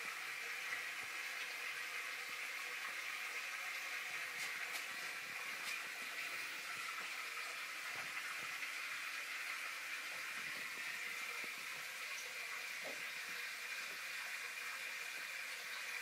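Steady hiss of bubbling, running water from a 200-gallon aquarium's filtration and aeration.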